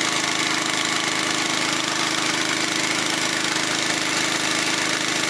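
Small engine of a crop-spraying rig running steadily at a constant speed, with no change in pitch or level.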